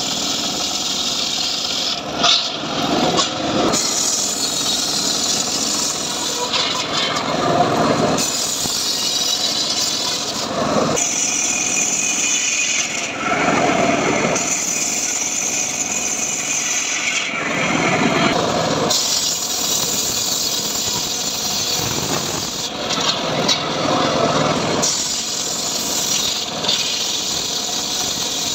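Homemade circular table saw ripping a trembesi (rain tree) log lengthwise, the blade cutting without a break. Its tone and whine shift every few seconds as the load on the blade changes.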